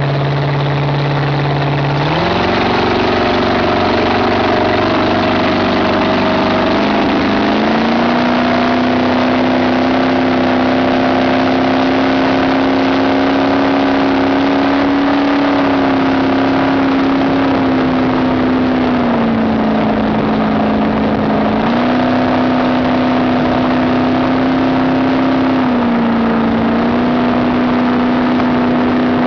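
A 1984 Marathon speedboat's V8 engine under way. It revs up about two seconds in, then holds high revs with two brief dips later on, over a steady rush of water and wind.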